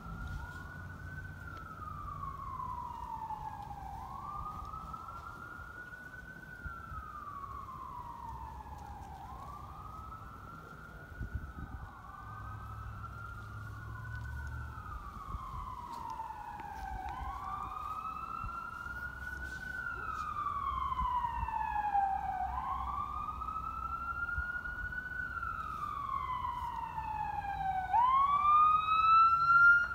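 Fire truck siren wailing as it approaches, each cycle rising quickly and then falling slowly over about four seconds. It grows louder and brighter and is loudest near the end.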